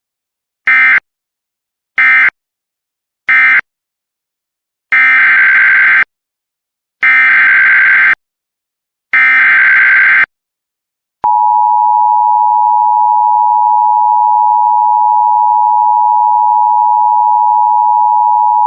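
Emergency Alert System digital data bursts: three short end-of-message bursts, then three longer SAME header bursts of shrill, warbling two-pitch tones. About two-thirds of the way through, a steady, loud attention tone begins, announcing the next alert.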